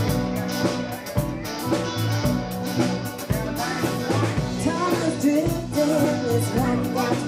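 Live rock band playing the intro of a song: electric guitars, electric bass, drum kit and keyboards, with a steady beat and a wavering melody line coming in about halfway.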